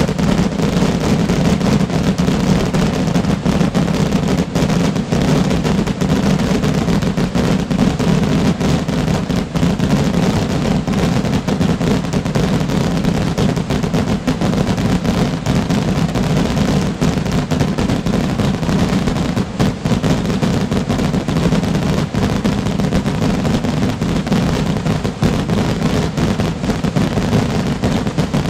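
A continuous barrage of exploding firework rockets (Asturian voladores), the bangs so dense that they merge into one unbroken, loud rumble of crackling blasts with no pause.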